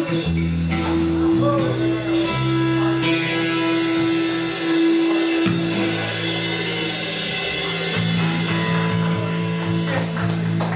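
Live rock band playing: a guitar, an electric bass holding long low notes, and a drum kit. Near the end comes a run of sharp drum and cymbal hits.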